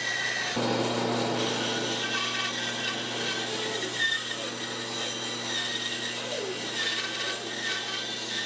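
An electric power tool runs steadily with a constant low hum while it works wood. The sound thickens about half a second in.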